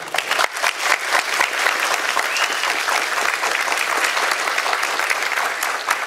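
Audience applauding: many hands clapping in a dense, steady patter that breaks out all at once.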